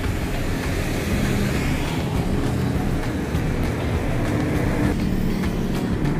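Steady road traffic noise from a busy street, with faint background music underneath.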